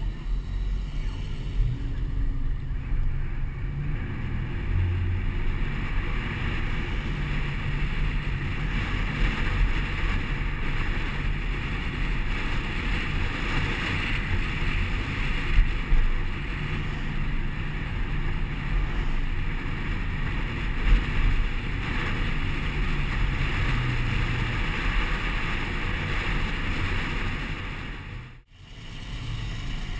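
Steady wind and road noise from a camera mounted on the outside of a moving pickup truck, with a low rumble of the truck and its tyres on the wet road. A few small bumps sound along the way, and the sound cuts out for a moment near the end.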